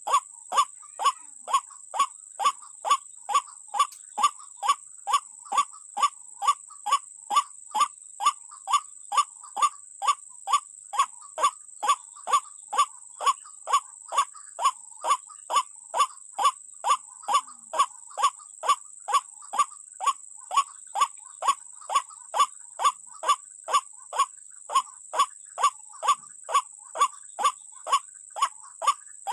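White-breasted waterhen (ruak-ruak) call repeated over and over at an even pace, just under two calls a second, each call falling in pitch. A steady high-pitched whine runs underneath.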